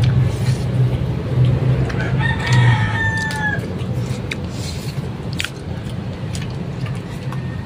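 A rooster crowing once: a single held call about a second and a half long that falls slightly at its end, over a steady low hum.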